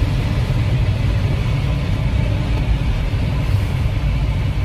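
Steady rush of airflow over an ASK 21 glider's closed canopy in flight, heard inside the cockpit as a low, even rumble.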